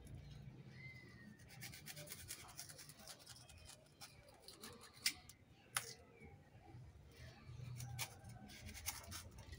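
Small serrated knife sawing through the crown of a banana bunch to free a hand of bananas: faint repeated scraping strokes, with two sharper clicks about five and six seconds in.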